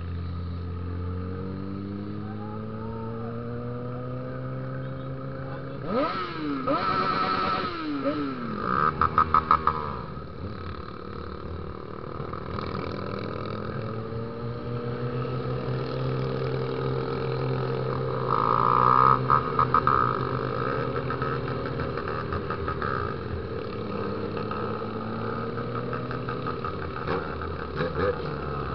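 Honda XR 250 Tornado's single-cylinder engine running under way, its pitch climbing and dropping again several times with throttle and gear changes. Louder stretches of rapid pulsing noise come about nine and about nineteen seconds in.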